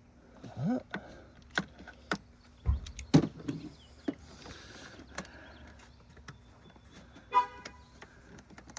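Hand tools working bolts at an engine's timing end: a string of sharp metallic clicks, a dull thump about three seconds in, and a short squeal near the end.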